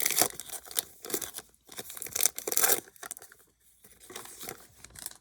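A baseball card pack wrapper being torn open and crinkled by hand. There is a dense run of crackling and tearing over the first three seconds, then fainter, scattered crinkles.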